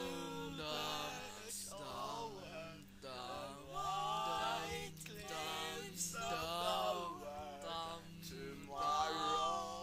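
Background music: a man singing slow, drawn-out phrases with a wavering pitch over a steady low held note.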